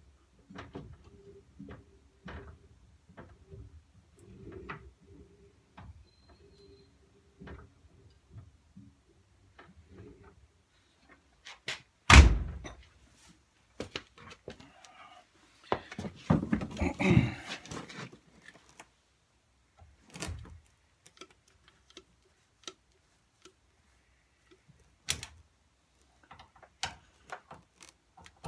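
Scattered light clicks and taps of tools and metal parts being handled. About twelve seconds in comes one loud, sharp knock, a spell of clattering and scraping follows a few seconds later, and then another knock.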